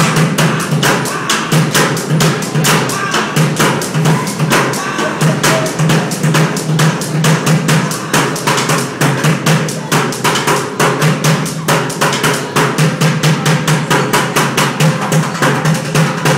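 Fast drumming on upturned plastic buckets: a steady, rapid beat of sharp hits over a pulsing low thud.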